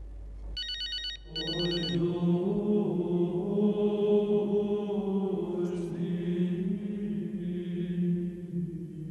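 A mobile phone rings in two short electronic bursts about a second in. Then low male voices chant a steady held note that runs on for several seconds.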